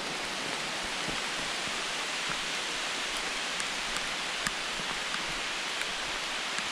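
Steady hiss of rain falling on the forest canopy and undergrowth, with an occasional faint tick of a single drop.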